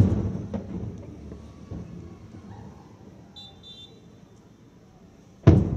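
Two aerial firework shells bursting, one at the start and one about five and a half seconds later. Each is a sharp boom followed by a long rolling echo that dies away slowly.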